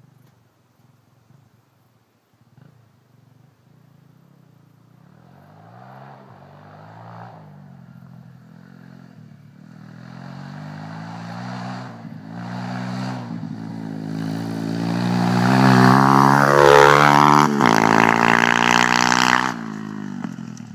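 Welsh Pit Bike 125 pit bike with a single-cylinder four-stroke engine approaching from a distance, its revs climbing and dropping back with each gear change as it grows steadily louder. It passes close by about 16 to 17 seconds in, with a sharp drop in pitch, then fades as it moves away.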